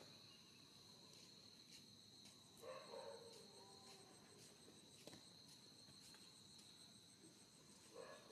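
Faint chorus of insects: a steady high-pitched drone with an evenly pulsing higher tone over it. A short, faint sound comes about three seconds in and another near the end.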